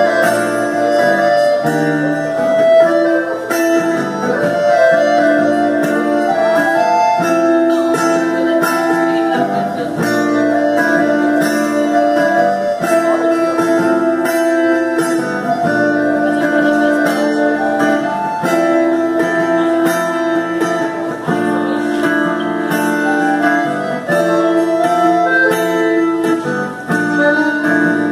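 A piano accordion and a guitar playing an instrumental tango together: held accordion chords that change every second or two, under plucked guitar notes.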